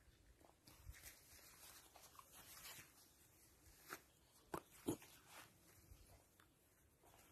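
Near silence: faint rustling with a few soft scuffs and clicks, the loudest two close together a little before five seconds in.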